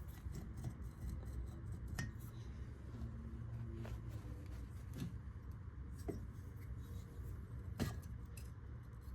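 Scattered light clicks and knocks of metal engine parts being handled as the cylinder jug of a Fuji F500K two-stroke is worked up off its piston, over a low steady hum. The sharpest knock comes near the end.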